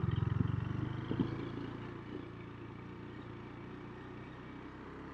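Vehicle engine running with a fast pulsing beat that eases off about a second and a half in, leaving a quieter steady low drone.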